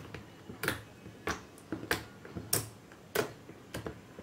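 Shampoo slime being pressed with the fingers, giving a sharp sticky pop or click each time, about six in a row at an even pace of roughly one every two-thirds of a second.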